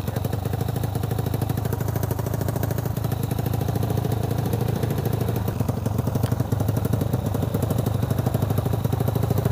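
Single-cylinder engine of a modified Vespa Sprint 3V scooter, fitted with a 68 mm big-bore piston and a carburettor, idling steadily with a quick, even firing beat.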